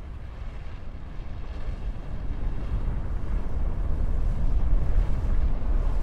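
Deep, steady rumble of a volcanic eruption's billowing ash cloud from a pyroclastic flow, growing louder over the last couple of seconds.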